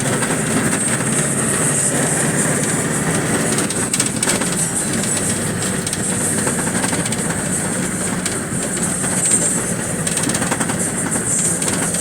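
Steady rumble and hiss of a moving passenger vehicle, heard from inside the cabin: engine and road noise.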